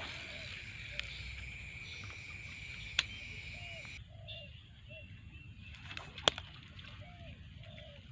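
Outdoor ambience by the water: a steady high insect drone that cuts off about halfway, short low calls repeating every half second or so, and a few sharp clicks, the loudest near the end.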